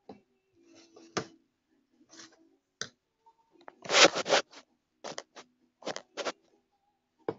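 Chopsticks and a plastic bowl being handled while eating: a scattered series of sharp clicks, taps and scrapes, with a louder clattering burst about four seconds in.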